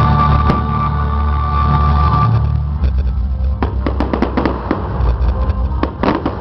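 Fireworks going off over bass-heavy music: a quick string of sharp bangs and crackles starts about three and a half seconds in, the loudest just before the end.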